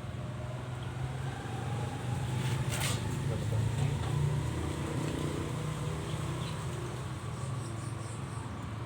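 Low, steady buzzing hum of a running machine, with one sharp click about three seconds in.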